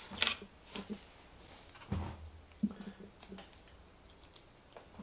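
A fingernail picking at and peeling a small label sticker off the printer's plastic frame: a few scattered light clicks and scratches with one dull knock, mostly in the first three seconds.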